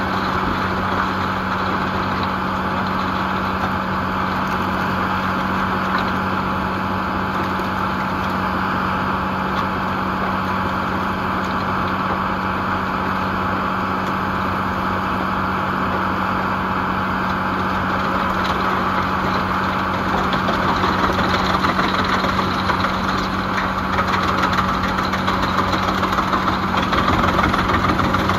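Tractor-driven wood chipper running with the tractor's diesel engine droning steadily, a continuous mechanical rumble and hum. About twenty seconds in it grows louder and harsher.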